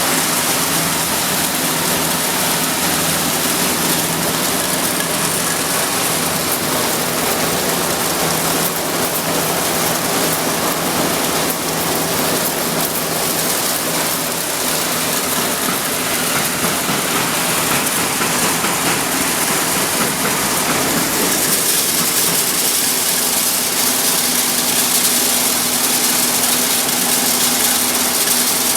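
Corn milling plant machinery running: a loud, steady roar with a low hum underneath that grows a little stronger about two-thirds of the way through.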